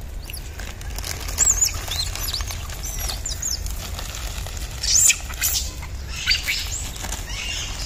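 High-pitched squeaky animal calls: a quick run of short arching squeaks about a second in, then louder ones around five and six seconds in, over a steady low rumble.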